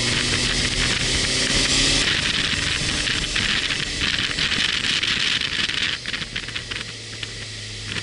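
Motorcycle ride heard from the bike: wind rushing over the microphone with the engine running underneath. The engine's steady note stands out for the first two seconds, then sinks under the wind, and the whole sound gets quieter about six seconds in before the engine note comes back near the end.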